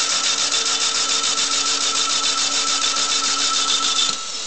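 Starter motor cranking a Saturn four-cylinder engine with its spark plugs removed, a fast, even mechanical rhythm with no compression strokes to slow it; it cuts off about four seconds in. The engine is being turned over to spread oil in the cylinders and WD-40 in the exhaust ports through an engine that has been sitting.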